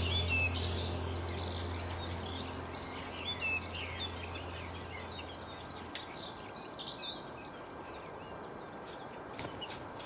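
Small songbirds chirping and twittering in many quick, overlapping calls. A low hum fades out about halfway through, and there are a few faint clicks near the end.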